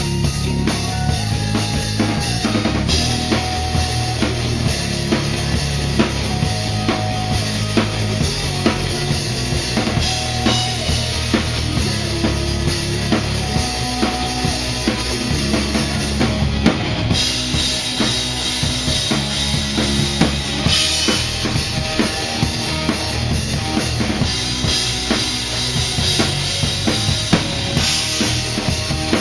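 Live band playing a song, the drum kit close and loudest: kick, snare and rim hits under a line of held instrument notes, with cymbals washing in over the second half.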